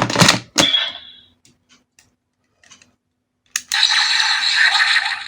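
Plastic clacks and faint clicks of the DX Suiseiken Nagare toy sword being handled. A little past halfway its electronic sound effect starts: a loud, thin, hissing rush.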